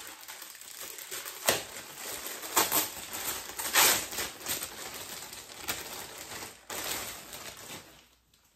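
Packaging rustling as it is handled and opened to unwrap a football shirt, with a few louder, sharper rustles about a second and a half, two and a half and four seconds in. It dies away near the end.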